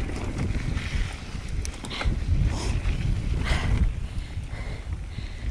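Mountain bike rolling over a wet, rough trail, with wind rumbling on the microphone and a couple of short sharper noises about two and three and a half seconds in.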